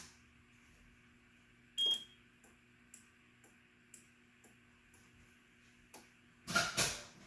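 A few sharp clicks and knocks, loudest near the end, with faint ticks about twice a second in between over a low steady hum.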